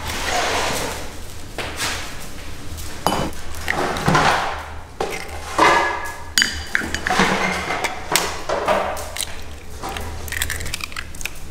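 Eggs cracked one after another with the blade of a kitchen knife over a stainless steel mixing bowl: a run of sharp taps and clinks from knife on shell and on the steel rim.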